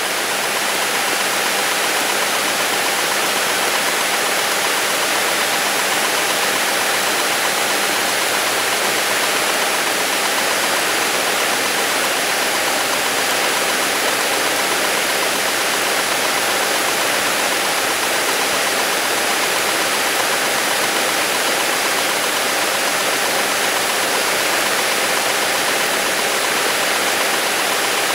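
Beechcraft Bonanza's piston engine and propeller running at takeoff power during the takeoff roll, heard from inside the cabin as a steady, even drone.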